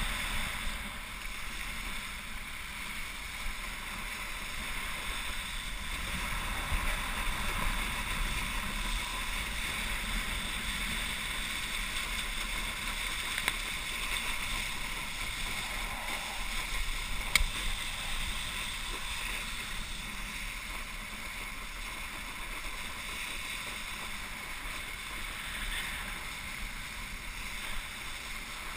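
Steady rush of water spray and wind from a wakeboard being towed across a lake, heard from a helmet-mounted camera. A couple of short knocks stand out, the loudest a little past the middle.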